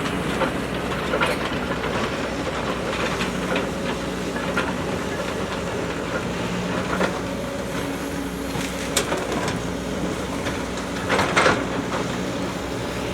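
JCB backhoe loader's diesel engine running steadily at work, with scattered sharp knocks from the working machine, a cluster of them about two seconds before the end.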